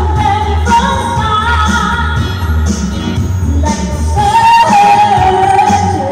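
A singer performing a pop song through a microphone over amplified band or backing music with a steady bass beat, played loud through the bar's speakers.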